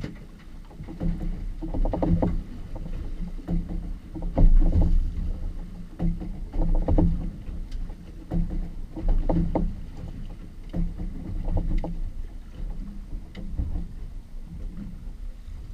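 Water slapping and knocking against the hull of a boat drifting on a light sea, in irregular low thuds about once a second over a steady low rumble.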